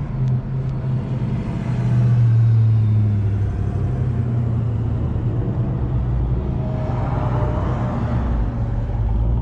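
Low rumble of a motor vehicle engine running close by, swelling about two seconds in and again near the end.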